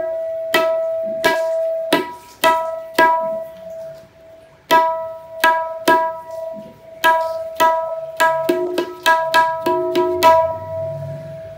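Tabla dayan struck with the fingers, each stroke ringing out on the same clear, sustained tuned note. The strokes come about one or two a second, with a short pause about four seconds in, then quicken near the end, with a few lower-pitched strokes mixed in.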